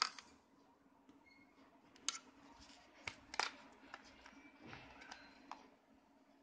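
Sharp plastic clicks and taps as the battery is pried out of the open back of a Micromax Canvas Magnus A117 smartphone. The three loudest come at the start, about two seconds in and about three and a half seconds in. A faint steady low hum runs underneath.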